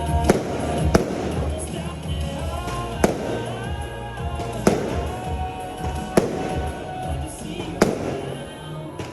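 Aerial fireworks bursting: six sharp bangs, a second or two apart, over music playing throughout.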